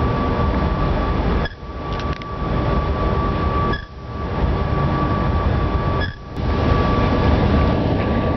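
Steady low rumble and rushing noise of a car ferry under way, heard on its open deck, with a thin steady whine from the ship's machinery. The sound drops out briefly three times, where separate clips are joined.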